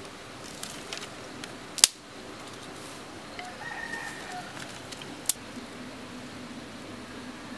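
A rooster crowing once for about a second, starting about three and a half seconds in. Two sharp cracks stand out, one about two seconds in and a louder-looking one near five seconds, as dry twigs are handled.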